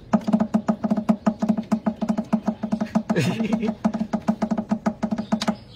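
Rapid, even knocking on a hollow wooden nest box, about eight knocks a second, each with the same ringing tone. A short cry breaks in about three seconds in.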